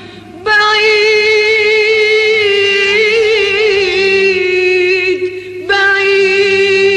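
An Arabic song: a long held vocal note with a slight waver, lasting about five seconds, then a short break and a second held note near the end.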